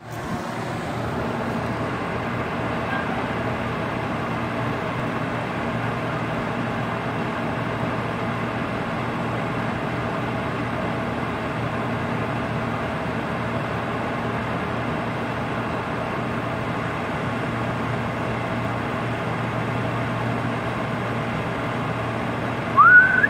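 A steady mechanical hum with a constant low tone, like a motor running, unchanged throughout. Near the end comes one short, loud, rising pitched sound.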